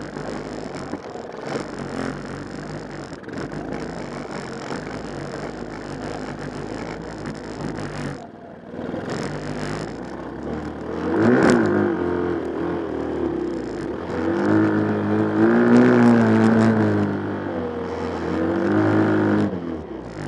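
The small 110cc engine of a mini Willys-style jeep running steadily, then revving up hard about halfway through and revving unevenly again, its pitch wavering, before dropping off at the end.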